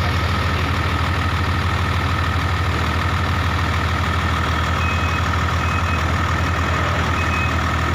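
Case 2050M crawler dozer's diesel engine running steadily, heard from inside the operator's cab.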